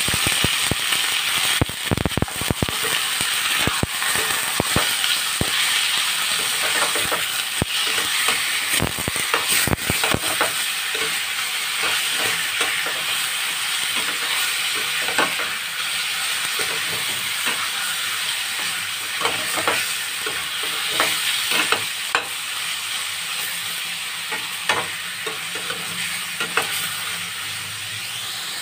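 Raw chicken pieces sizzling in hot oil with garlic, ginger and onion in a stainless steel wok, a steady hiss, while the pieces are stirred and turned. Knocks and clicks of the stirring are frequent for the first ten seconds or so, then sparser.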